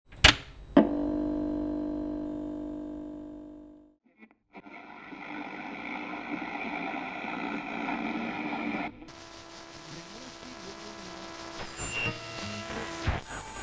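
Sound-design collage: a sharp click, then a struck chord of several tones ringing and fading out over about three seconds. After a short gap, a steady noisy, hissing bed with faint held tones follows; it changes texture abruptly about nine seconds in, with a few scattered ticks and a click near the end.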